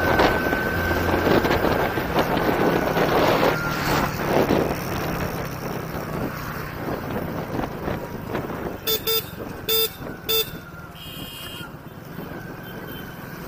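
Hero Splendor motorcycle's single-cylinder engine running at road speed under steady wind and road noise, easing off in the second half. Four short horn beeps come about nine to ten and a half seconds in.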